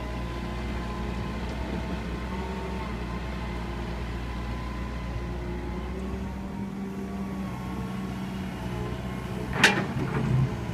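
Hitachi hydraulic excavator running steadily, its diesel engine humming under a wavering hydraulic whine as the arm swings. Near the end there is one sharp loud clank, followed by a short rattle, as the bucket strikes the bottom of the pit.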